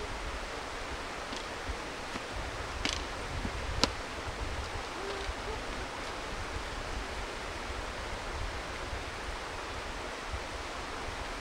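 Steady outdoor background hiss with a low rumble underneath, and a few sharp clicks around three and four seconds in.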